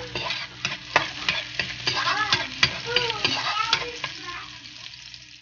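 A utensil clicking and scraping against a pan during stirring, over food sizzling in hot oil. The clicks come several times a second and thin out and fade near the end.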